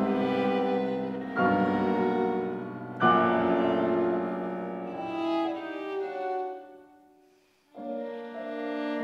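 Chamber trio of violin, viola and piano playing: three loud accented chords about a second and a half apart, then the music fades into a brief pause near the end before the instruments come back in.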